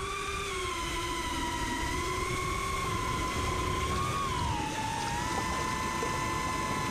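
FPV racing drone's brushless motors giving a steady high-pitched whine with a low rumble of air noise, the pitch dipping slightly about two-thirds of the way through.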